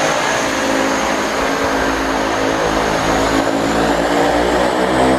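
Twin-engine turboprop airplane's engines running: a steady propeller drone under a thin, high turbine whine.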